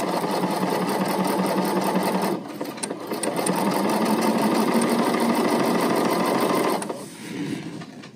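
BERNINA sewing machine stitching at a steady speed, easing off briefly about two seconds in, then running on and stopping near the end.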